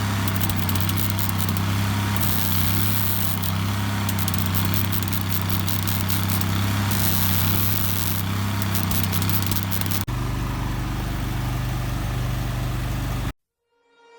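Gas-powered generator running a welder at a steady hum, with rough crackling hiss from the welding and grinding on a steel roll cage that swells at times. There is a cut about ten seconds in that changes the hum, and the sound cuts out just before the end.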